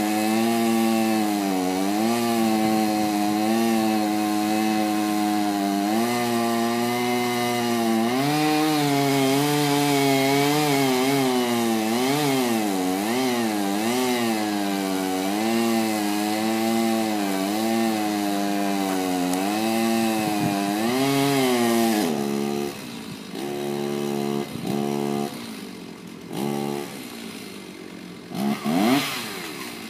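Two-stroke chainsaw cutting into a large tree trunk at high revs, its pitch dipping and recovering again and again as the chain loads up in the wood. About 22 seconds in it drops back to idle with short blips of throttle, then revs up again near the end.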